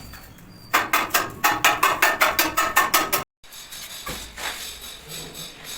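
A fast, even run of sharp mechanical clicks or taps, about six a second, lasting about two and a half seconds, then cutting off abruptly.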